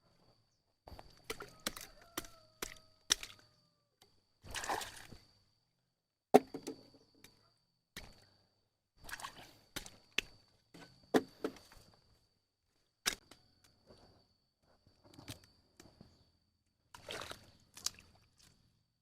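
Irregular thunks, sharp clicks and short rustling bursts from hand work, spaced out with quiet gaps. The loudest knock comes about six seconds in.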